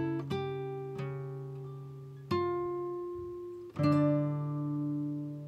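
Background music on acoustic guitar: plucked notes and chords that ring out and fade, with a fresh chord struck about every one to one and a half seconds.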